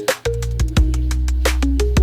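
Background music: an electronic track with a steady bass line, a beat of sharp percussion hits about twice a second and a plucked melody stepping between notes.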